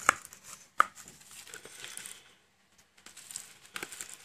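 A metal spoon stirring and pulling very sticky homemade slime in a plastic tub, giving soft crackling and squelching with a couple of sharp clicks near the start.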